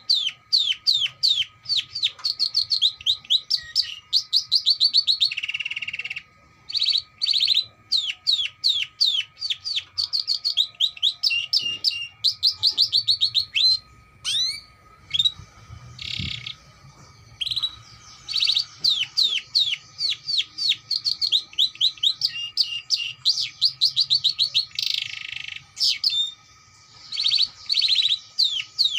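Domestic canary singing a long, rapid song: fast trills of quick chirps, many a second, broken now and then by short buzzy rolls.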